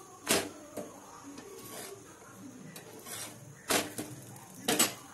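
Sharp clacks of a spatula and pan against a nonstick tawa on a gas stove as a paratha is laid on and pressed: one early, then a few more near the end.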